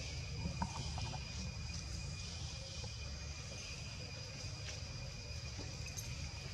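Outdoor ambience: a steady, high-pitched insect drone over a low rumble, with a few faint clicks about half a second to a second in.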